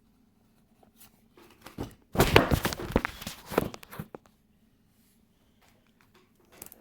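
Close handling noise: about two seconds of rustling and knocking, starting a couple of seconds in, then a few faint ticks.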